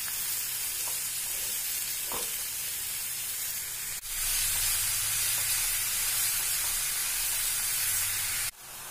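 Soya chunks in onion-tomato masala sizzling in a frying pan, a steady hiss. It turns abruptly louder about four seconds in and drops abruptly near the end.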